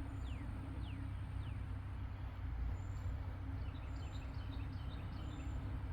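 A steady low motor hum runs throughout, while small birds give short, high, falling chirps in the first second and a half and again a few times later.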